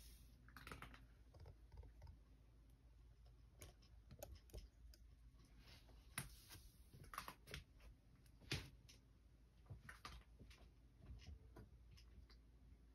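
A domestic cat eating from its bowl: faint, irregular clicks of chewing and of teeth on food, over a low room hum.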